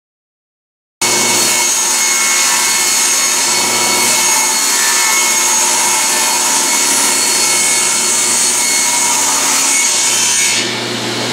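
Table saw ripping a long wooden board lengthwise: a loud, steady sound of the blade cutting through wood over the motor's hum, starting suddenly about a second in. Near the end the high hiss fades as the cut eases off.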